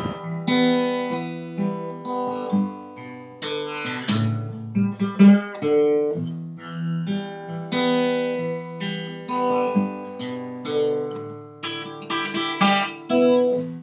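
Background music on acoustic guitar: plucked notes struck one after another and left to ring and fade.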